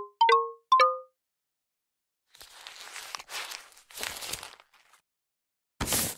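Three quick, short pitched plinks, then crumpled paper crinkling and rustling for about two seconds as it is handled, and a brief burst of noise near the end.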